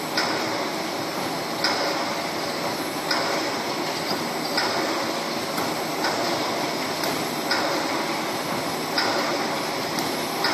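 Automatic wire mesh welding machine running, with a sharp clack repeating about every one and a half seconds, one for each welding cycle, over steady machine noise.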